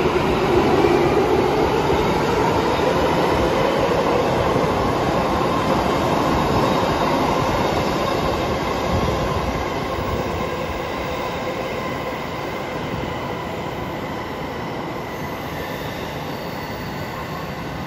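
A Tokyo Metro Tozai Line subway train pulls out of the platform. Its motor whine rises in pitch as it accelerates, and its running noise slowly fades as it leaves.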